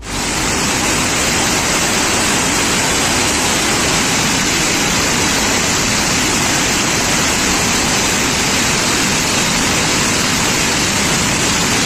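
Many firecrackers bursting at once in a fire, a dense, steady crackle with no break.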